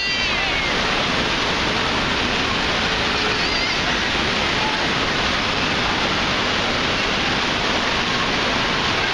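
Steady rush of falling water at a waterpark, even and unbroken, with faint distant voices under it.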